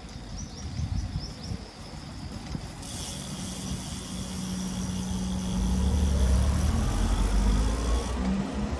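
Wind and road noise from riding along a street. About two-thirds of the way in, traffic noise swells as a motor vehicle's engine grows louder, with a rising engine note.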